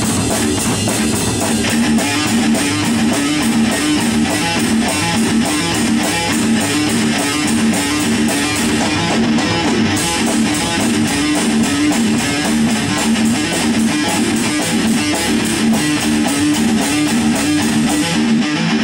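Rock band playing an instrumental passage: strummed guitar over bass and drums with a steady beat.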